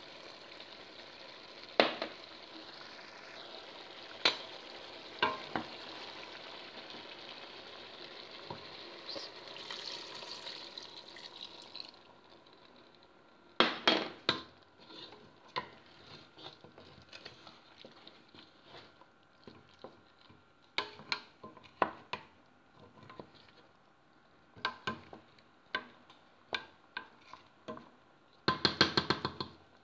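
Chicken drumsticks sizzling in a stainless steel pot, with a wooden spoon stirring and knocking against the pot. The sizzle drops away about twelve seconds in, leaving scattered clacks of the spoon, and there is a quick run of them near the end.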